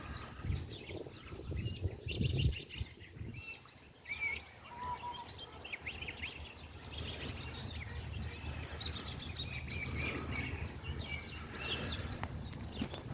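Many wild birds chirping and warbling over a low rumble, with a few low thumps in the first few seconds.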